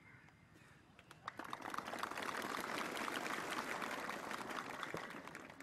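Crowd applauding: clapping swells about a second in, holds steady, then dies away near the end.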